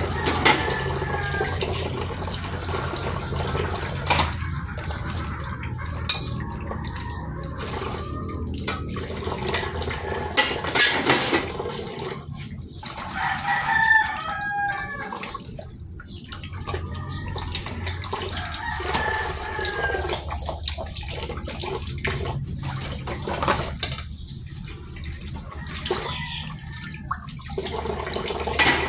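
Tap water running into a plastic washbasin while dishes are rinsed and handled, with a rooster crowing several times in the background, most clearly about halfway through.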